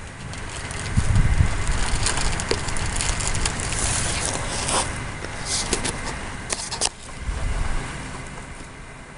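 Wind rumbling on the camera microphone, with low surges about a second in and again near the end. Scattered crackling rustles, mostly in the middle.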